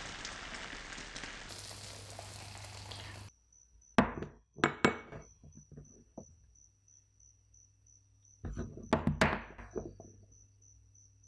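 A small ceramic spoon knocking and clicking against a wooden tabletop. There are a few sharp taps about four to five seconds in, then a cluster of knocks near nine seconds as a block of butter is tipped off it onto the wood. Before that, a steady hiss runs for about three seconds and cuts off abruptly.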